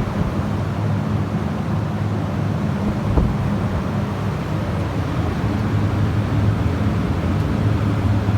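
Walk-in cold room evaporator fans running: a steady drone of moving air with a low hum, and one short knock about three seconds in.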